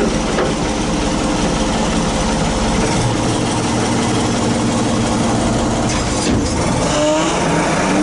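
Engine of an old front-end loader running steadily as it drives, heard from the operator's seat, with a rising note near the end.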